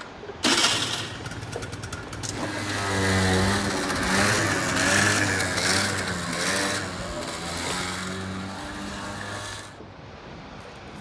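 Small scooter engine that comes in suddenly, then revs up and down as the scooter pulls away; the sound cuts off near the end.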